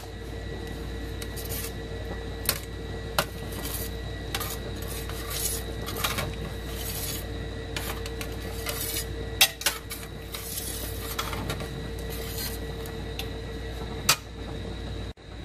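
A slotted metal spatula scraping and clinking against a stainless steel pan as ground meat and tomatoes are stirred in stock, in irregular strokes with a couple of sharper clinks. A steady hum runs underneath.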